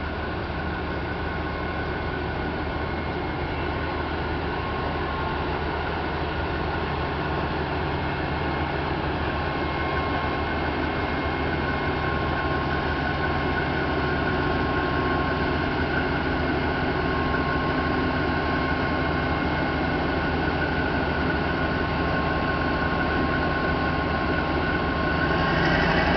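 Diesel locomotive engine running at low power with a steady hum and a high whine as the locomotive creeps forward to couple onto another locomotive. It grows gradually louder and swells near the end as it closes in.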